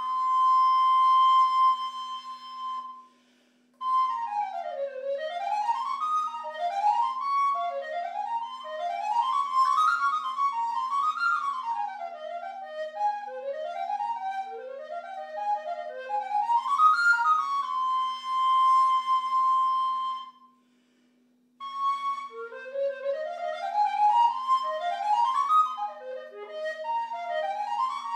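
Solo Ganassi-model alto recorder in G playing baroque variations: a long held high note, a short pause, then fast runs sweeping up and down. About twenty seconds in it holds another long note and pauses briefly before the runs start again.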